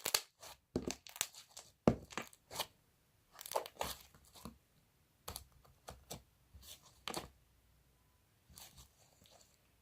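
Slime being stretched and squished by hand, with irregular short sticky pops and crackles as air bubbles in it burst.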